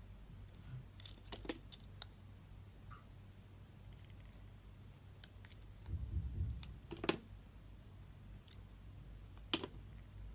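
Knife cutting dry bar soap: a few crisp crunching clicks, a cluster about a second in and single sharp ones later, with a dull low thud shortly after halfway.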